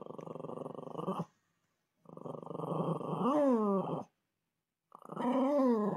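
Small dog growling with a pacifier held in its mouth, in three bouts, the later two rising into a whiny, wavering pitch that falls again.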